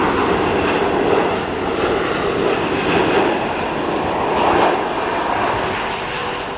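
Jet airliner's engines on approach to land: a loud, steady rushing noise that swells slightly a few times.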